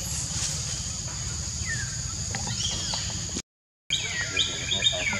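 Outdoor forest ambience: a steady high hiss with a few short gliding calls. The sound drops out for half a second about three and a half seconds in, then comes back with a quick run of high, repeated chirps, about three a second.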